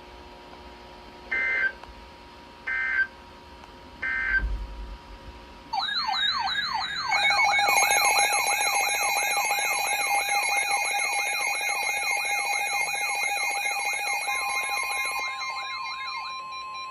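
Emergency Alert System alert on NOAA Weather Radio: three short SAME header data bursts about a second and a half apart. About six seconds in, a wavering siren-like alarm tone starts, joined a second later by steady alert tones. Near the end a single steady warning alarm tone takes over, heralding a new severe thunderstorm warning.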